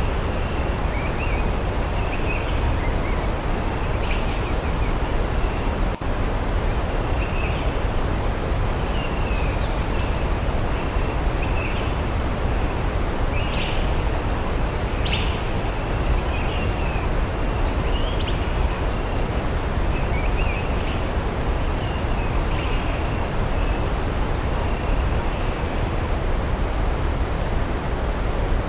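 Waterfall rushing steadily, with distant birds chirping on and off over it.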